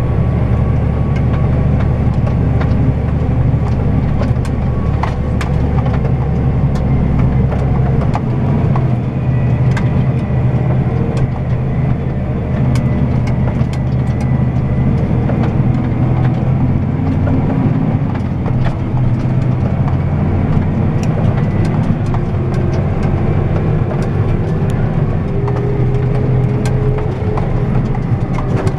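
Claas Axion 850 tractor running under way, heard from inside the cab: a steady engine hum with frequent small rattles and clicks. The deep low rumble drops away about eight seconds in.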